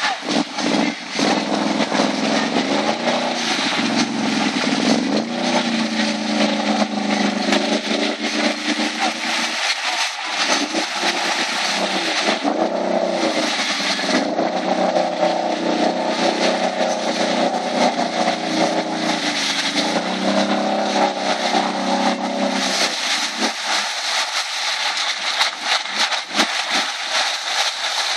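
Can-Am Renegade 1000 ATV's V-twin engine with a full HMF exhaust, revving in repeated rising and falling surges as the quad sits stuck in deep mud with its tires spinning and churning mud and water. A few seconds before the end the engine sound drops away, leaving splashing and sloshing mud.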